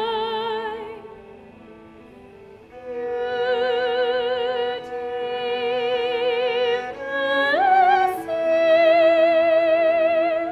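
Recorded opera: a high operatic voice holds long notes with wide vibrato, over an instrumental accompaniment of short repeating notes. The voice falls away for about two seconds near the start, then returns, sliding up to a higher held note about seven and a half seconds in.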